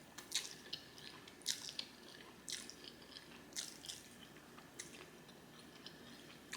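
Close-miked chewing of spaghetti with meat sauce: soft wet mouth clicks and smacks, coming in small clusters about once a second.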